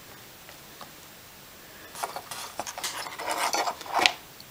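Handling noise starting about two seconds in: scraping, rubbing and small clatters as a flight controller board and its wires are lifted and turned over against a carbon-fibre quadcopter frame, with a sharper knock about four seconds in.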